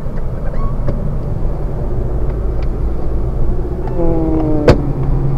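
Steady low engine and road rumble inside the cabin of a 2017 Honda Civic Sport on the move. A few faint ticks, a brief pitched sound about four seconds in, and a single sharp click just before the end, the loudest moment.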